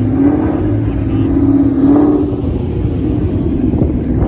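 Cars with loud exhausts driving past and accelerating, a steady low rumble under an engine note that rises to a peak about two seconds in, then drops away.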